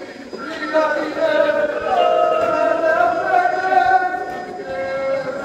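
A man's solo voice chanting a Shia mourning elegy in long, drawn-out melodic lines with notes held for a second or more.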